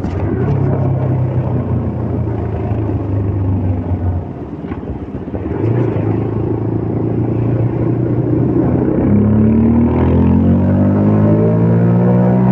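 CFMOTO Papio 125's single-cylinder engine running under way. About four seconds in the throttle eases off, then the engine picks up again and revs up with a steadily rising pitch from about nine seconds in as the bike accelerates.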